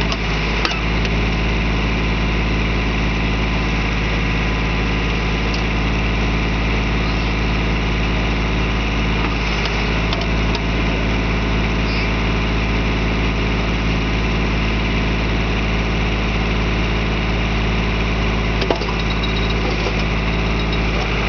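John Deere garden tractor's engine running steadily, driving the backhoe attachment's hydraulics as it digs. Two short knocks, one about a second in and one near the end.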